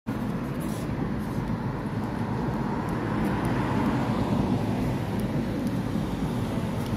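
Street traffic: cars driving past, a steady tyre and engine noise that grows a little louder about halfway through as a car passes close by.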